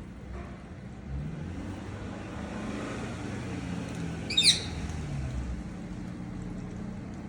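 A motor vehicle's engine passing, its low hum rising and then falling away. About four seconds in comes one short, sharp high chirp that falls in pitch, the loudest sound in the stretch.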